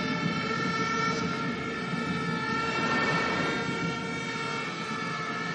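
Football stadium crowd noise on a TV match broadcast, with several steady held tones over it.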